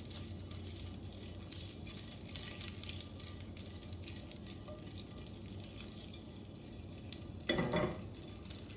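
Breakfast sausages sizzling in a frying pan, a steady crackle of frying fat.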